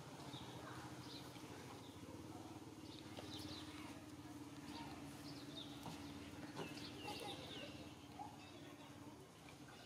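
Faint, high, short chirping animal calls, repeated many times, over a steady low hum that fades near the end.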